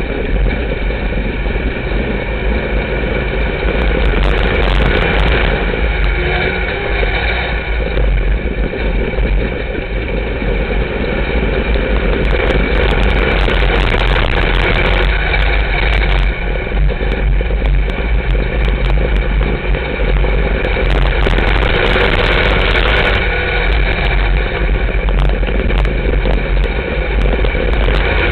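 Dirt-track sport mod race car's V8 engine running hard at racing speed, heard from inside the cockpit. The note swells and eases through the laps, over a heavy low rumble.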